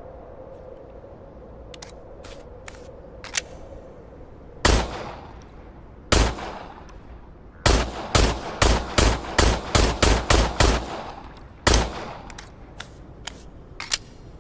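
.45 pistol firing. Two single shots come first, then a fast string of about ten shots at roughly three a second, then one more shot, each with an echoing tail. A few small sharp clicks come before and after the shots.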